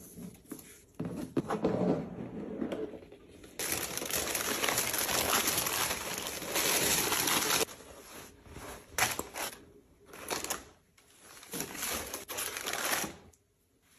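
Tissue-paper wrapping rustling and crinkling as a shoe box is unpacked by hand: a few light clicks while the box ribbon is undone, then a long loud stretch of crinkling paper about four seconds in, and shorter rustles after it.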